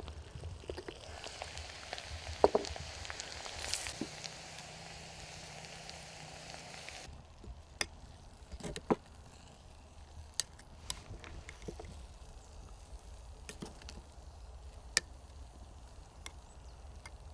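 A ceramic clink as a lid is handled on a hot clay stew pot, over a steady hiss. Then, after a cut, a spoon clinking and scraping against a clay pot every second or two as someone eats.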